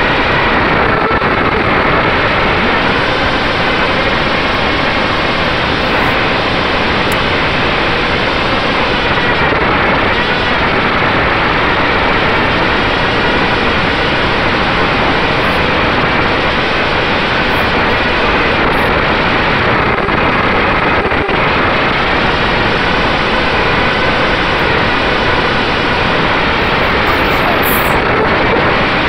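FPV drone's electric motors and propellers in flight, heard from its onboard camera: a loud, steady noise with a motor whine that wavers in pitch as the throttle changes.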